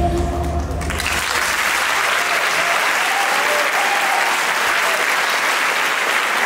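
Dance music stops about a second in, and an audience breaks into steady applause.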